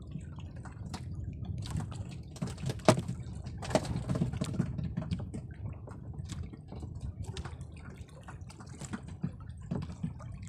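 Sea water sloshing against a small boat, with scattered drips and small splashes as a wet handline is hauled in hand over hand. The sharpest splash comes about three seconds in.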